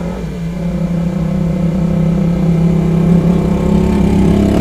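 An engine running steadily with a strong low hum, growing a little louder over the first few seconds.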